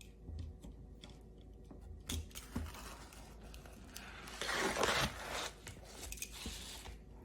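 A crisp-bottomed grilled pizza being pulled off the grill plate onto a board: light knocks and clicks, then a louder scraping rustle about four and a half seconds in.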